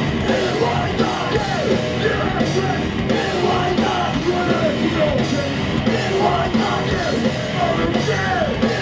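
Heavy metal band playing live at full volume: drums and electric guitars with yells over the music.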